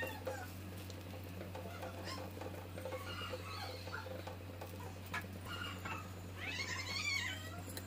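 A cat meowing, with a longer, wavering meow about three-quarters of the way through, over a steady low hum and a few light clicks.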